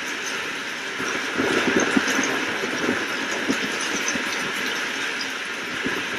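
Steady rain with a crackling rumble of thunder that swells about a second in and fades over the next couple of seconds.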